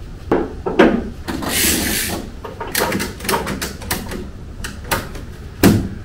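Heavy boxes being pushed across a pickup truck bed: a scrape as they slide and a series of knocks and thumps, the loudest thump near the end.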